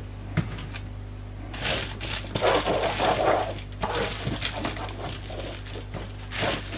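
Dishwasher tablets rustling and knocking together as they are handled, starting about a second and a half in.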